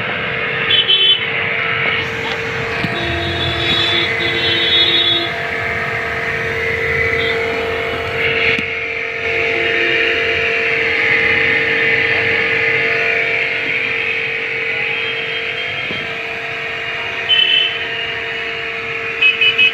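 A machine running with a steady, even hum, with a few short high beeps about a second in and twice near the end.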